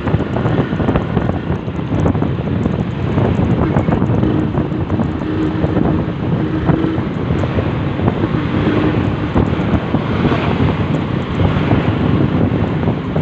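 Wind buffeting the microphone over the steady rumble and road noise of a moving vehicle.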